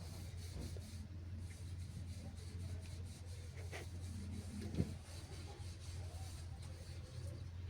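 Blankets and bedding being handled, with soft rustling, scratchy rubbing and light ticks. One sharp thump comes about five seconds in, over a low steady hum.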